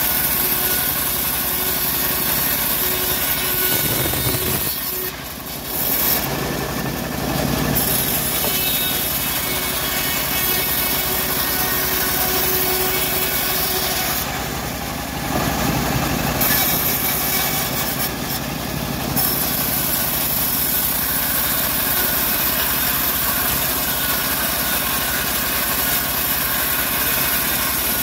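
Homemade band sawmill ripping a teak board: the machine runs and the blade cuts steadily. The high hiss drops away briefly twice.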